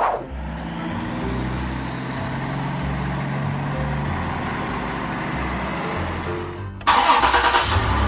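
Sound effect of a truck engine running steadily over background music with a changing bass line, for an animated concrete mixer truck; near the end a louder, rougher burst of engine noise cuts in.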